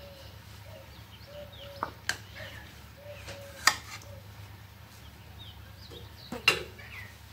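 A steel serving spoon clinks against a serving tray as food is spooned onto it: a few sharp clicks, two close together about two seconds in, then single louder ones a little after halfway and near the end. Birds chirp faintly in the background.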